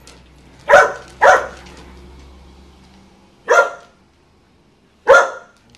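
A dog giving four short, sharp barks: two in quick succession about a second in, one past the middle and one near the end. These are play barks from a group of dogs wrestling.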